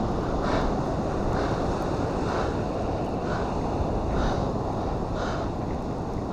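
Wind buffeting the microphone over the steady wash of surf, with a faint soft sound repeating about once a second.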